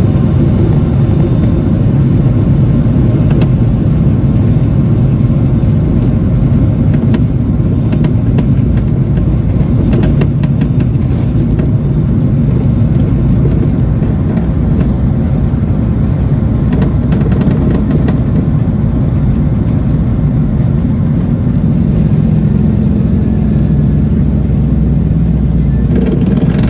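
Cabin noise of a Boeing 737-800 during its takeoff roll: the CFM56-7B engines at takeoff thrust and the wheels rumbling on the runway, loud and steady, with occasional light knocks. The aircraft lifts off near the end.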